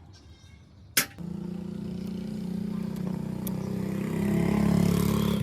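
An electric power tool clicks on about a second in, then its motor runs with a steady hum that grows louder toward the end.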